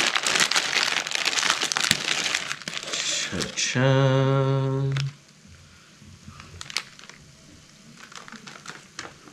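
Plastic instant-ramen wrapper crinkling as it is handled and tipped over the pan. About four seconds in, a man hums one steady low note for about a second. After that there are only a few faint clicks.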